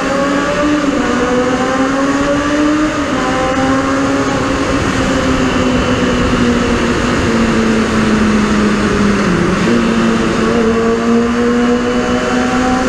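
Kawasaki Balius II's 250cc inline-four engine revving high under way inside a road tunnel, a wail likened to an F1 car. Its pitch climbs for the first three seconds, drops briefly, holds steady, dips again about nine and a half seconds in, then climbs once more.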